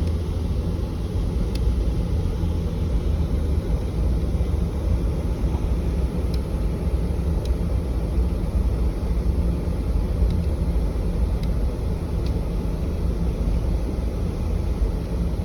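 Steady low rumble of a vehicle driving, heard from on board, with a few faint ticks.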